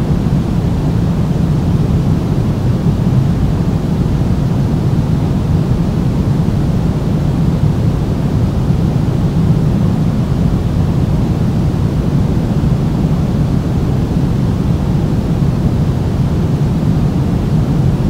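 Steady pink noise: an even, featureless rush with most of its weight in the low end.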